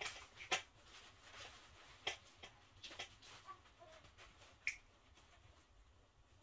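A handful of sharp, separate clicks and light knocks from the play pen's metal poles and connectors being handled and fitted together, the loudest about half a second in.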